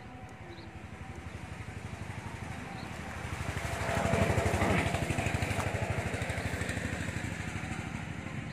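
A small engine running with a fast, even beat, growing louder to a peak about four seconds in and then slowly fading, as a passing motor vehicle does.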